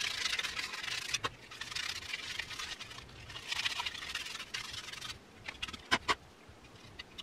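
Scrubbing and scraping surface rust off the steel outer sleeve of a DeWALT 20V reciprocating saw's motor, in uneven rasping strokes. The strokes die down after about five seconds, followed by a couple of sharp clicks.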